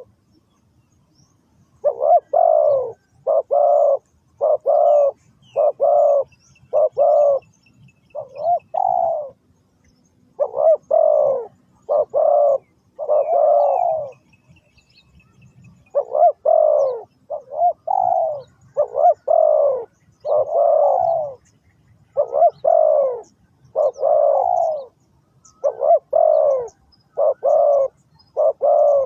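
Spotted dove cooing: a long run of short, repeated coo notes in phrases, with a pause at the start and another about halfway through.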